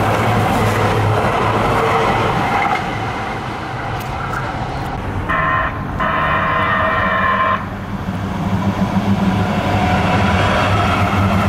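Los Angeles Metro light rail train passing close with rail and wheel noise. A little after the middle, a train horn sounds a short blast then a longer one. Near the end the rumble of another light rail train grows as it approaches the crossing.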